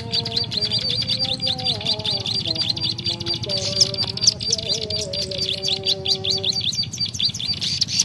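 Rapid bird-call lure recording: a fast, unbroken run of short high chirps, about seven a second, played to draw small wild birds to a trap cage. Lower steady whistled tones shift in pitch beneath it.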